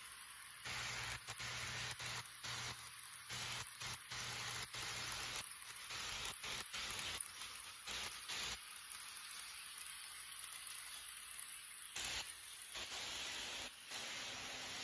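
Faint, uneven hiss and whir of an HO-scale model train running along its track, the wheels of the Rivarossi E.402B locomotive and its nine coaches rolling on the rails over a low motor hum.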